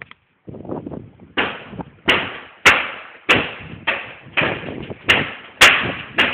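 A pony's hooves cantering on a sand arena: a regular series of dull thuds about every 0.6 seconds, one for each stride, starting about a second and a half in.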